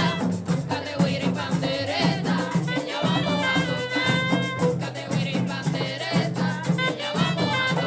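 Background music: an upbeat song with a steady beat, a shaker rattling and singing.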